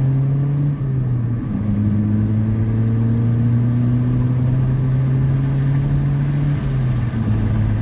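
A 2001 Mitsubishi Mirage's 4G15 four-cylinder engine drones steadily under full throttle, heard from inside the cabin. Its pitch climbs only slowly: the car is floored but barely gains speed, a loss of power the owner cannot trace.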